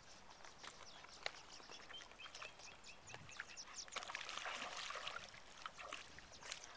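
Swallows twittering: many short, high chirps scattered throughout. A soft rushing noise swells up about four seconds in.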